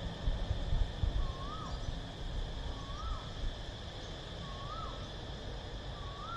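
Cicadas droning steadily, with wind rumbling on the microphone, while a bird repeats a short whistled call that rises and then falls, about every second and a half, four times.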